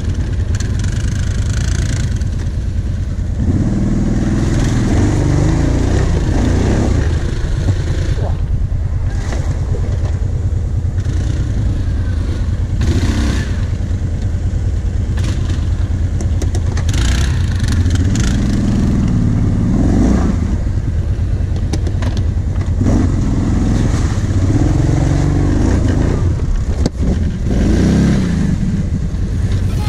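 Kawasaki KVF 750 Brute Force ATV's V-twin engine running steadily, rising and falling in pitch several times as the throttle is opened and closed.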